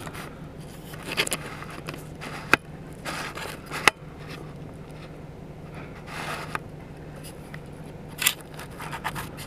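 Scraping and scratching handling noise on the recording device, with a few sharp clicks about two and a half and four seconds in, over a faint low steady hum.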